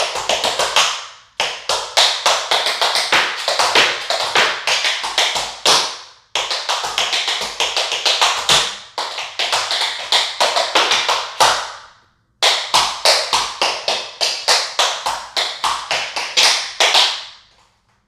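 Tap shoes' metal taps striking a hard floor in fast, rhythmic tap-dance combinations: four phrases of rapid clicks, each stopping for a brief pause before the next.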